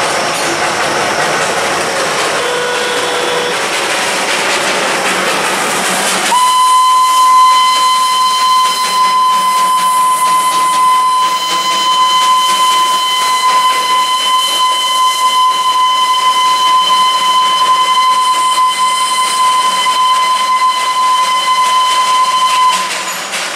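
Darjeeling Himalayan Railway steam locomotive: a hissing, noisy rush of steam for about six seconds, then its whistle sounding one long, steady blast for about sixteen seconds before it cuts off near the end.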